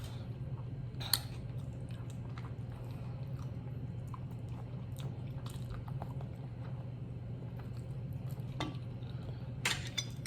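Close-miked chewing and mouth sounds of someone eating oxtail and rice, with scattered soft clicks and a few sharper ones about a second in and near the end. A steady low hum runs underneath.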